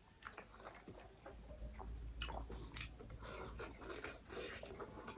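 Close-up eating sounds: a person biting and chewing food, with many small irregular clicks and crunches. A low rumble runs for a second or so near the middle.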